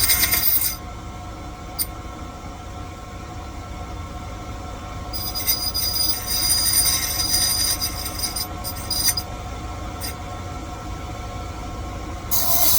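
Key-cutting machine with its motor running steadily while the cutter grinds into a metal key blank with a high, squealing rasp, in three spells: at the start, a long pass from about five to nine seconds in, and a short one near the end.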